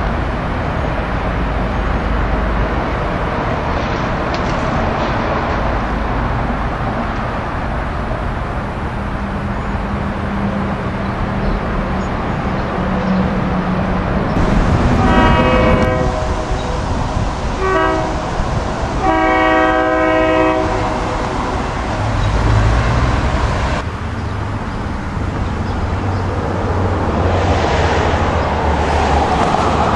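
A train's air horn sounds a chord in several blasts over about six seconds, starting about halfway through, over a steady low rumble.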